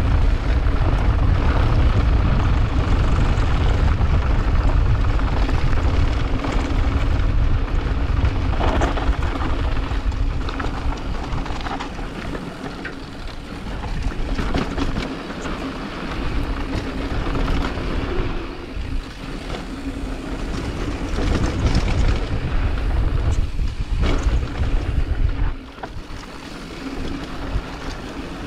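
Wind buffeting a fast-moving microphone with a heavy low rumble, a faint steady hum and scattered knocks and rattles. It is strongest for the first dozen seconds, eases off after that, and drops suddenly for a moment near the end.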